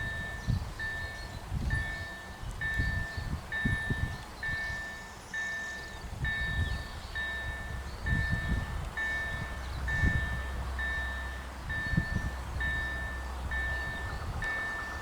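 Railway level crossing warning signal ringing steadily, one electronic ding a little under once a second, warning that a train is approaching. Wind buffets the microphone, and a train's approach begins to be heard near the end.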